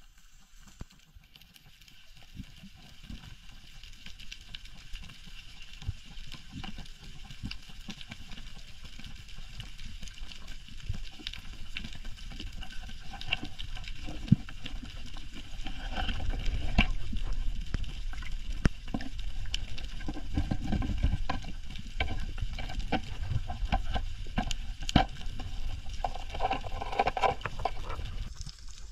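Underwater sound around a freediver moving over a reef: a low rumbling wash of water with many scattered sharp clicks and crackles, getting louder over the first half.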